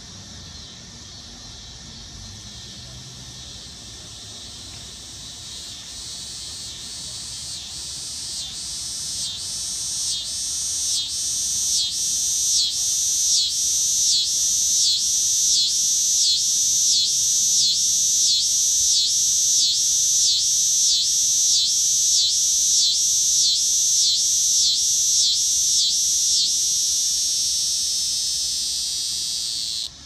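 A male dog-day cicada sings its mating call, a loud, high, shrill buzz. It swells over the first several seconds, then throbs about twice a second for a long stretch. Near the end it turns smooth and cuts off suddenly.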